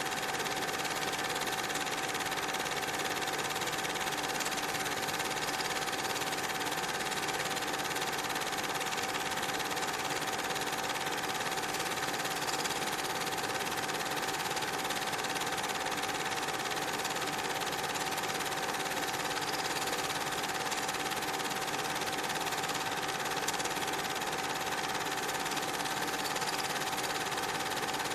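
A small machine running steadily: an even mechanical whirr with a constant hum over hiss, unchanged throughout.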